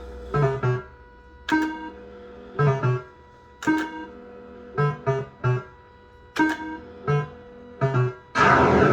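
Super Bar X fruit machine's electronic sound effects: a series of short pitched beeps in clusters of one to three. Near the end a loud, harsh burst of sound cuts in.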